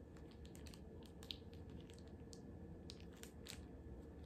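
Faint, scattered small clicks and crinkles of a plastic soy sauce packet being squeezed out over noodles, over a low room hum.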